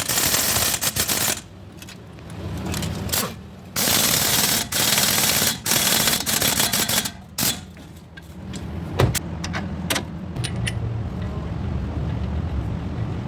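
Pneumatic impact wrench hammering in about five bursts of half a second to a second and a half, with short gaps, followed by a few single sharp knocks. A steady low hum runs underneath.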